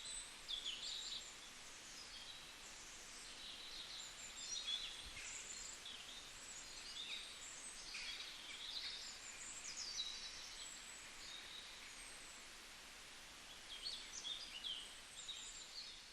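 Several small birds chirping and trilling in short, scattered phrases over a steady background hiss.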